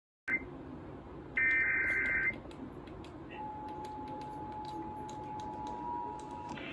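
Emergency Alert System broadcast tones: a short blip, then about a second in a harsh warbling data burst, the digital header that opens an alert. From about three and a half seconds in, a faint steady attention tone of two close notes follows.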